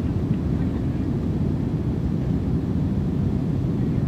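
Jet plane engine noise: a steady, deep rumble that neither rises nor falls.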